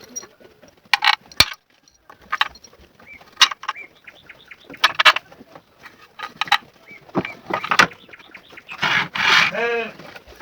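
Scattered sharp knocks and clicks, then a farm animal bleating once with a wavering call about nine seconds in.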